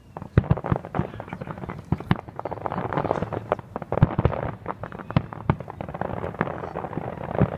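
Aerial fireworks going off in a rapid, irregular barrage of sharp bangs, several a second.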